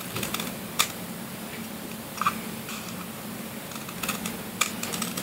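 Scissors snipping slits into a cardboard tube: irregular sharp snips and clicks, with several in quick succession about four seconds in.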